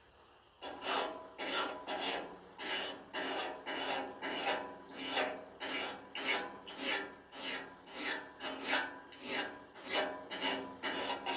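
Hand metal file scraping along a steel lopper blade in steady back-and-forth strokes, about two a second, starting about half a second in. The filing is taking nicks and ridges out of the dull blade's edge.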